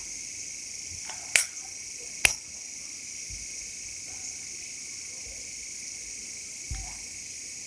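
Crickets chirring steadily in the background, with two sharp taps of a marker on a whiteboard about a second apart, a second and a half in.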